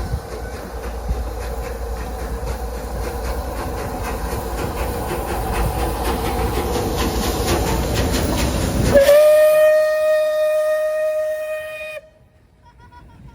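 Steam locomotive and train running past, growing steadily louder, then the locomotive's whistle sounding one steady note for about three seconds before cutting off abruptly.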